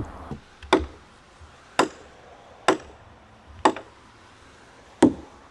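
A hand tool chopping into the wood of a dugout canoe being hollowed out: five sharp blows, roughly one a second, with a slightly longer gap before the last.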